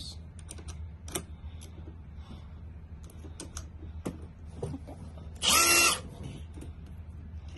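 Light clicks and knocks of the drill and its attachments being handled, then a short run of the Bosch GSR 18V-EC's brushless motor: a whine that rises as it spins up and holds for about half a second before stopping.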